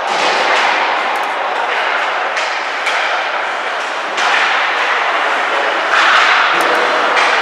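Ice hockey play on the rink: sharp knocks of sticks and puck against the boards, over a rushing scrape of skates on the ice that swells at about four and six seconds in.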